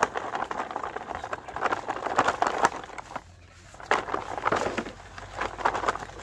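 Plastic toy dump truck loaded with pieces of brick being dragged on a string over dirt, grass and dry leaves: a crackly rattle and scrape of wheels and load, pausing briefly a little past halfway.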